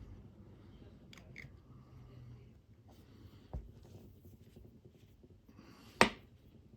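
Small tools and watch parts handled on a workbench: faint light clicks about a second in, a soft knock halfway, and one sharp click near the end, the loudest sound.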